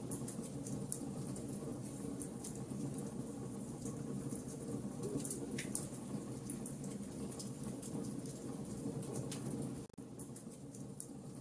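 Wood fire in a fireplace crackling, with frequent small, irregular pops and snaps over a steady low noise. Just before the end it drops out for an instant and then runs a little quieter.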